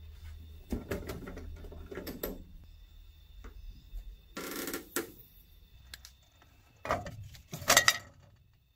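Metal handling noises at a sandblasting cabinet: clicks of its spring latches being unclipped, a short rush as the lid is lifted, then clattering knocks near the end as metal parts are set down on the cabinet's wire grate. A low steady hum runs underneath.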